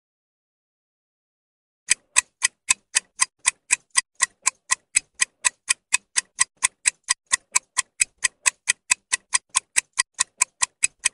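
Clock-like ticking sound effect of a quiz countdown timer, about four sharp ticks a second, starting about two seconds in.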